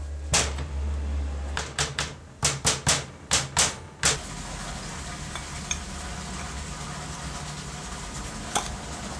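Metal saw parts handled on a workbench: a run of sharp taps and knocks, several in quick succession near the middle, then a steady hiss with a low hum and one more click near the end.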